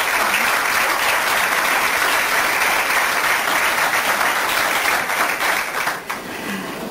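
Studio audience applauding, many hands clapping together, dying away about six seconds in.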